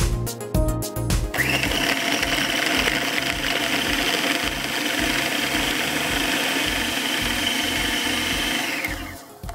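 Electric food chopper running steadily, its blades cutting cold butter cubes and cheddar into flour for a cheese cracker dough. It starts about a second in and stops just before the end.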